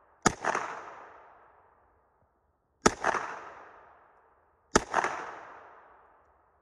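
Three single shots from a KRISS Vector Gen II carbine, fired slowly about two to two and a half seconds apart. Each is a sharp crack followed by an echo that dies away over about a second and a half.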